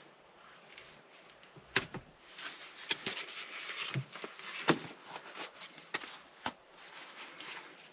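Scattered sharp clicks and knocks with some rustling as the stock shift knob is turned on its locking collar and worked loose from the shifter. The loudest knock comes near the middle.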